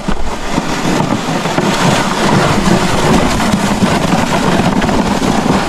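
A sled sliding downhill over snow, its runners giving a steady, rough scraping rumble mixed with wind on the microphone.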